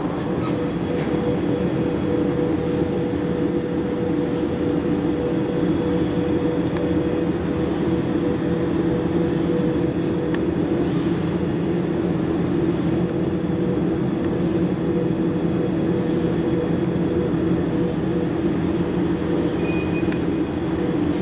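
Steady droning hum of running machinery, holding an even pitch throughout with no strikes or pauses.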